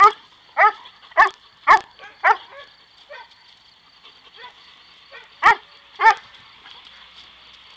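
Young Dobermann puppy barking excitedly on the leash, roused in a drive-stimulation exercise. It gives a run of five barks about half a second apart, pauses for about three seconds, then barks twice more.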